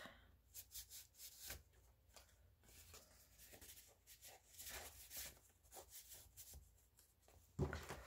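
Faint rustling and light ticks of paper and card being handled as fold-out pocket cards in a handmade junk journal are closed and the book is lifted, with one louder rustle near the end.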